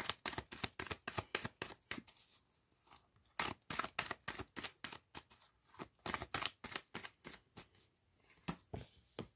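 A deck of tarot cards being shuffled by hand: several runs of quick, crisp card flicks with short pauses between them.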